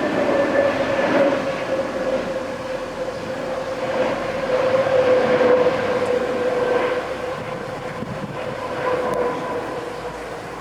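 Airbus A320neo with Pratt & Whitney PW1100G geared turbofan engines on final approach: a steady engine whine over rushing jet noise, the whine's pitch sliding slowly down and the sound easing after about six seconds.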